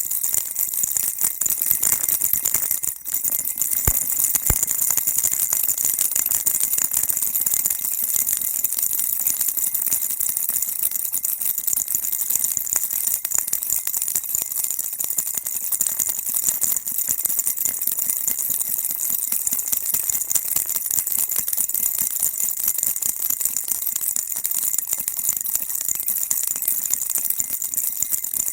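Baby rattle shaken without pause, a dense, high-pitched, continuous rattling, with a brief dip about three seconds in.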